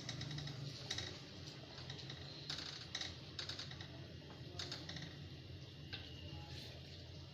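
Scattered light clicks and taps, irregular and sometimes in quick little clusters, over a steady low hum.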